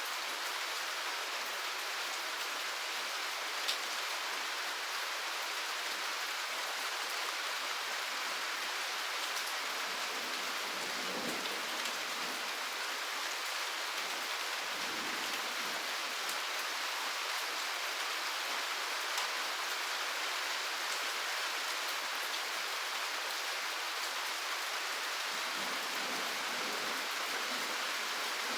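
Steady rain falling, an even hiss of drops on surfaces with the odd single louder drop tick.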